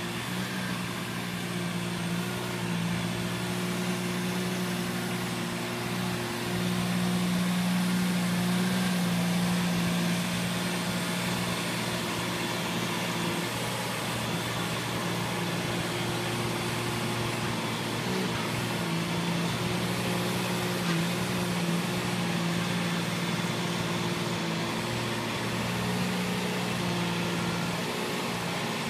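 Dingo mini tractor's engine running steadily while it drives a rotary tiller through the floor litter, its pitch shifting slightly now and then as the load changes.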